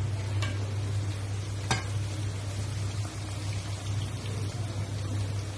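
Chicken pieces deep-frying in hot oil in a kadai, a steady sizzle, with a slotted spoon clinking against the pan twice, about half a second and nearly two seconds in, over a steady low hum.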